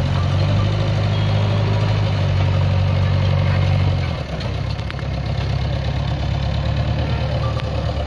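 Diesel engine of a JCB backhoe loader running steadily as it works its front bucket through brick rubble. The engine sound drops in loudness about halfway through and carries on lower.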